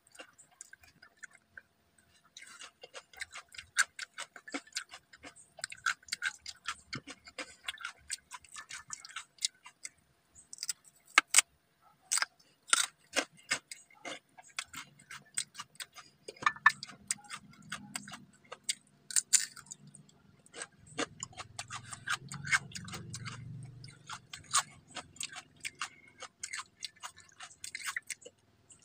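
Close-up chewing and crunching of raw carrot and cucumber: a fast, irregular run of crisp crunches with a few louder bites.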